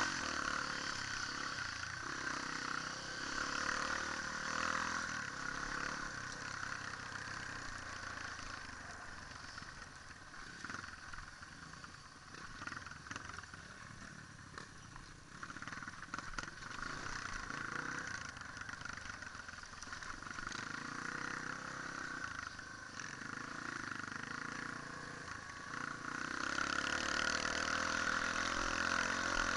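Dirt bike engine running on an off-road trail ride, its note rising and falling with the throttle, heard from a camera mounted on the bike. It is quieter through the middle stretch and picks up again near the end.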